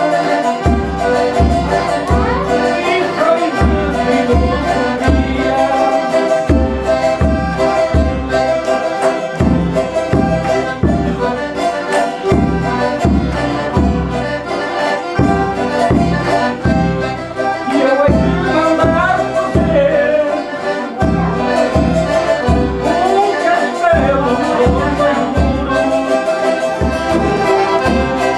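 Traditional Portuguese folk music led by accordion, with a steady beat.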